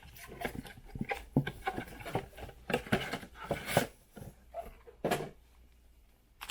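Irregular light knocks and taps as a cardboard box and wrapped card packs are handled and set down on a tabletop, tailing off about five seconds in.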